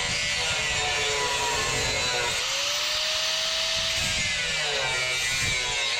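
Handheld power grinder running against metal on a truck's exhaust, its motor whine sagging and climbing back each time it is pressed into the work and eased off.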